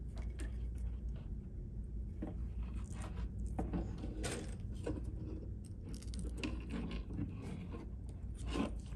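Small clicks and rustles of insulated low-voltage wires and plastic crimp connectors being handled and twisted together by hand, scattered irregularly over a low steady hum.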